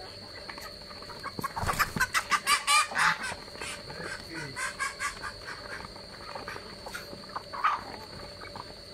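Mixed poultry flock of Muscovy ducks, chickens and geese pecking at rice, with a quick run of loud calls about a second and a half in and one more call near the end. A steady high-pitched whine sits underneath.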